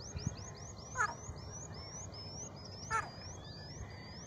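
Pen-cap whistle blown to imitate a teetar (francolin) call: a run of short high whistles, each rising in pitch, quick at first and then slowing into longer upswept notes. Twice a louder, short call falls in pitch.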